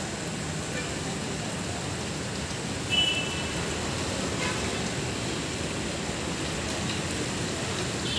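Steady rushing noise of an approaching thunderstorm, with a short high-pitched tone about three seconds in.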